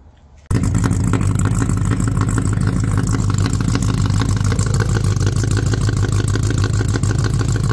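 Old sedan's engine idling steadily, heard from behind at the exhaust tailpipe; it starts suddenly about half a second in.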